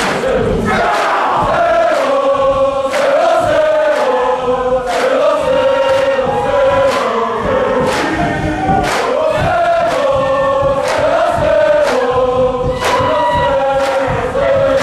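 A hall full of students singing together, the melody held and gliding in long notes, with sharp handclaps keeping time about every second or two.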